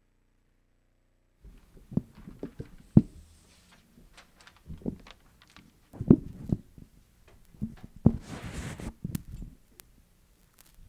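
Microphone handling noise: scattered knocks and thumps and a short rustle as a handheld microphone and its stand are handled, after about a second and a half of dead silence.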